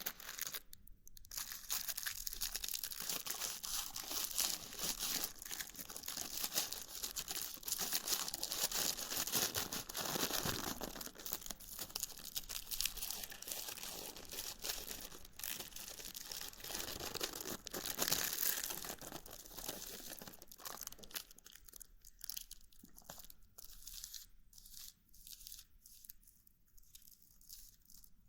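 Dry crinkling and crackling of rolling paper and loose herb handled by hand while a joint is prepared, dense for about twenty seconds and then thinning to scattered crackles.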